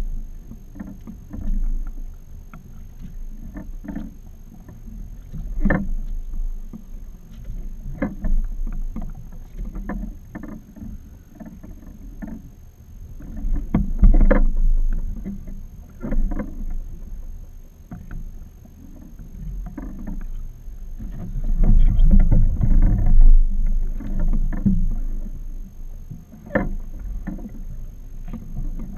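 Small fiberglass boat on open water: water lapping at the hull over a low rumble, with scattered knocks and thumps from the hull and gear. The rumble swells twice, about halfway through and again a few seconds later.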